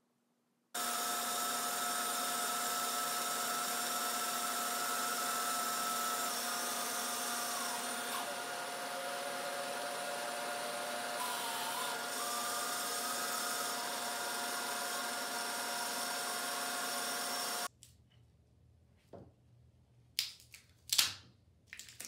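Bandsaw running and cutting a curve through a glued-up hardwood blank: a steady whine over a hiss. It cuts off suddenly near the end, and a few knocks and clatters follow as the cut wooden pieces are laid on the bench.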